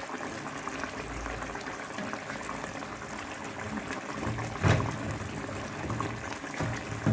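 Coconut fish curry bubbling at a simmer in a pot, with a sudden knock about two-thirds of the way through as a spatula works in the pot.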